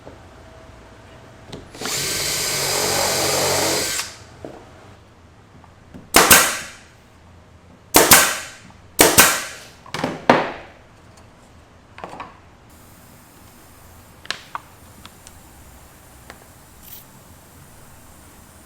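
Power drill running steadily for about two seconds, then five short bursts, each starting sharply and dying away, with a few light clicks afterwards.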